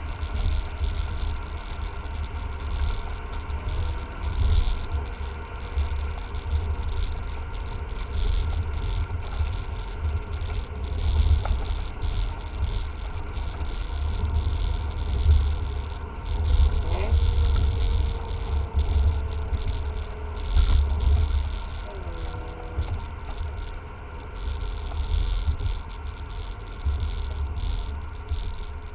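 Cabin noise of a BMW sedan being driven: a steady low rumble of road and engine noise that swells and fades, with a faint engine tone that slides up and down as the revs change a few times.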